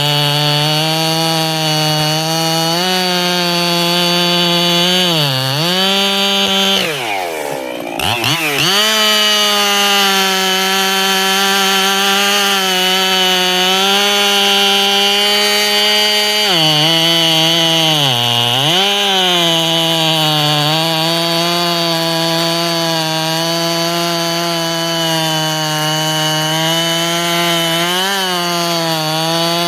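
Echo CS-7310 two-stroke chainsaw running at high revs, cutting into wood, its carburetor modified for more flow and throttle response. The engine pitch sags several times as the saw is leaned into the cut, most steeply about seven seconds in, then climbs back up.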